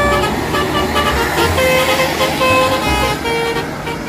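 Bus "telolet" musical multi-tone horn playing a quick tune of short notes at different pitches, over a low engine rumble.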